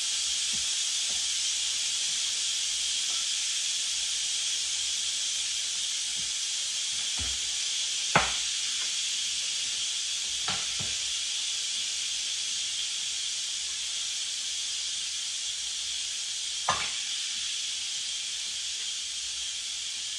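Instant Pot electric pressure cooker venting steam through its valve in a quick release: a steady hiss that slowly fades as the pressure drops. Three sharp knocks come about eight, ten and seventeen seconds in.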